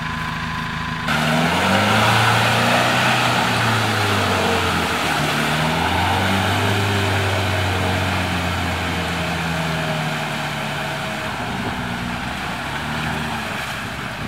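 A four-wheel drive's engine revving hard several times, its pitch climbing and falling, starting about a second in, over a loud rushing noise. This is typical of a vehicle bogged in mud trying to power its way out.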